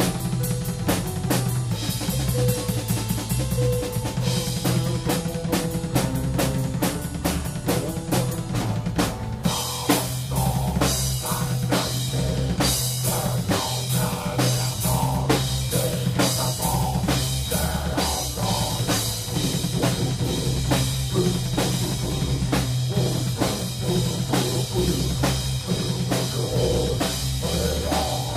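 Live dark folk band playing, driven by a fast, dense drum-kit beat over steady bass, with acoustic guitar.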